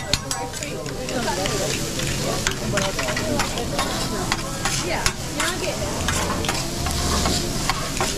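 Rice and food sizzling on a hot teppanyaki griddle, with metal spatulas scraping and clicking against the steel plate many times as the rice is stirred and portioned.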